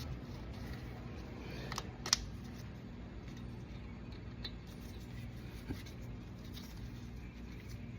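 A few small sharp metallic clicks, the loudest about two seconds in, over a steady low hum: the front brake caliper's retaining pins and spring wire being worked into place by hand.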